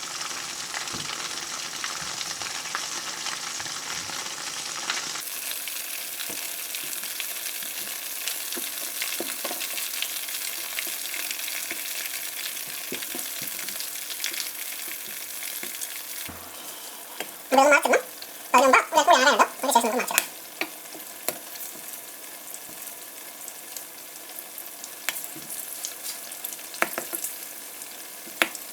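A whole batter-coated ripe banana deep-frying in hot oil, sizzling steadily. From about two-thirds of the way in there is a short run of louder clatter and scraping from the pan.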